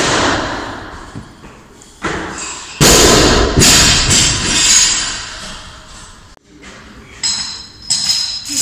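A string of heavy thuds, each echoing and dying away slowly in a large gym hall, the loudest about three seconds in. Near the end come lighter knocks with a high metallic ringing.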